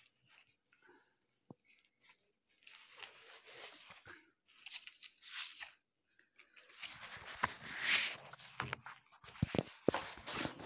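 Faint, irregular rustling and crackling with sharp clicks, sparse at first and thickening in the second half.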